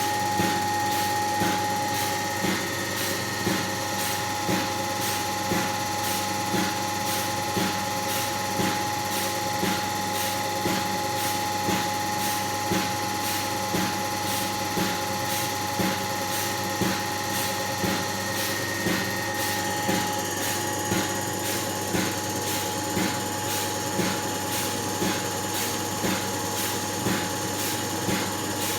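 Range Rover 3.6 TDV8 diesel engine running unevenly, with a regular pulse about every second and a half over a steady clattering hum; the uneven running is the fault in question.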